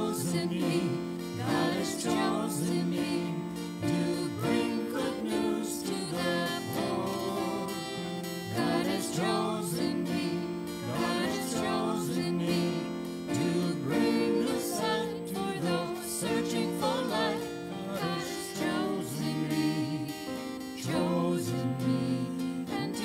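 A church hymn sung by a small group of singers, accompanied by piano and acoustic guitar.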